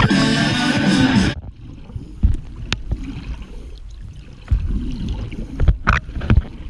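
Guitar-backed music that cuts off about a second in, then underwater sound through the GoPro's housing: a low water rumble with scattered sharp knocks and clicks.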